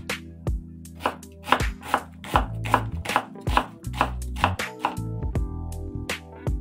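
Chef's knife chopping red onion on a wooden cutting board: a steady run of sharp chops, about two to three a second, over background music.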